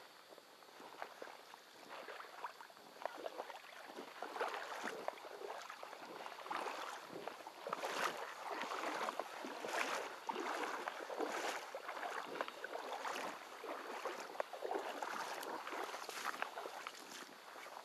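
Footsteps wading through shallow river water over a pebble bed, each step splashing and sloshing, at a steady walking pace that grows louder about four seconds in.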